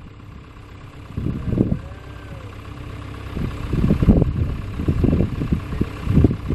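Cat excavator's diesel engine idling steadily, with uneven low rumbling swells over it.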